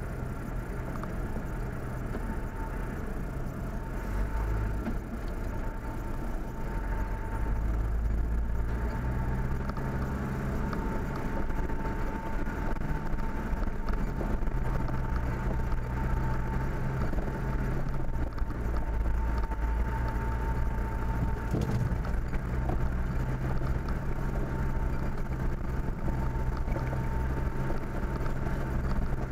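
A motor vehicle's engine running steadily, a low hum that grows a little louder about seven seconds in, with a thin steady whine above it.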